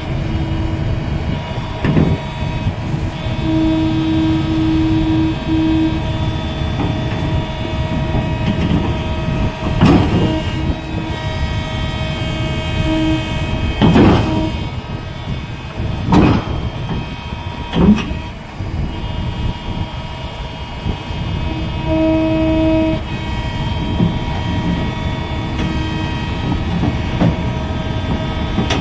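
Komatsu PC200 excavator's diesel engine and hydraulics running steadily with a constant whine, while heavy metallic clanks ring out about five times as the machine is driven and loaded onto a transport trailer.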